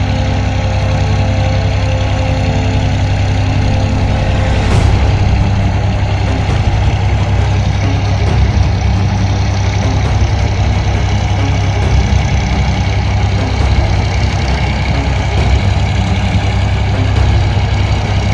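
New Holland 8080 combine harvester's diesel engine running steadily at a constant speed, a deep continuous drone.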